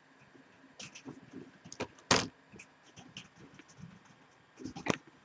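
Scattered computer-mouse clicks and light knocks, with one louder thump about two seconds in and a sharp click pair near the end as the program is launched.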